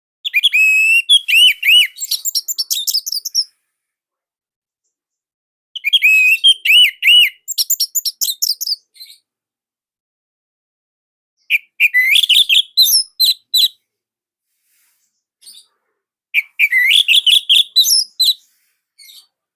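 Orange-headed thrush singing: four loud bursts of rapid, varied, high-pitched warbling notes, each lasting two to three seconds, with pauses of a few seconds between them.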